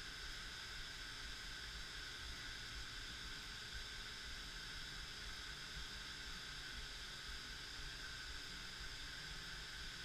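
Steady, even hiss with a faint low rumble underneath and no distinct events: background room noise.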